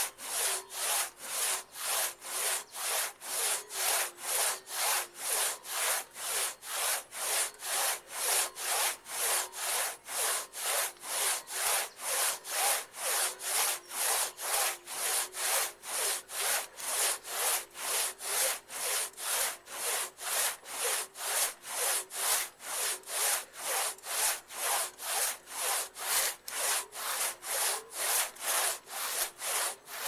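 Hand saw cutting through the trunk of a larch tree, sawing back and forth in a steady, even rhythm of about two strokes a second.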